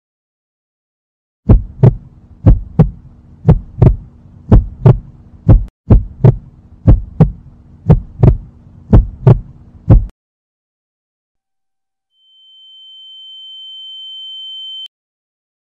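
Heartbeat sound effect: loud, low double thumps about once a second over a low hum, stopping about ten seconds in. Then a steady high electronic tone swells for nearly three seconds and cuts off suddenly.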